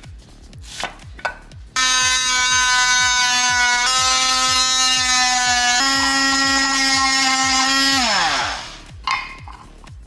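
Cordless 20-volt oscillating multi-tool buzzing as its blade cuts into a plastic electronics housing. The whine starts about two seconds in, steps up in pitch twice, then winds down near the end as the tool is switched off.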